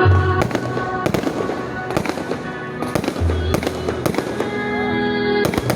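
Fireworks going off in repeated sharp bangs, some in quick clusters, over music playing in the background.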